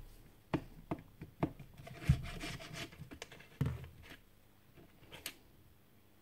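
Handling noise as a screwdriver and small metal parts of a magnetic drill are picked up and handled: a scattered run of light knocks and clicks with some rubbing, the two strongest knocks about two seconds and three and a half seconds in.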